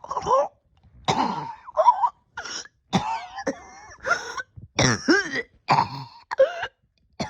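A person coughing over and over in a long fit, about a dozen short coughs with brief gaps, some with a strained, pitched breath that bends up and down. The cough comes from a respiratory illness that, by the person's own account, has left their breathing impaired for about a year.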